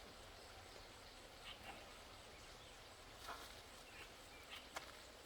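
Faint short animal calls, five or so, scattered over a low, steady background hiss, with one sharp click near the end.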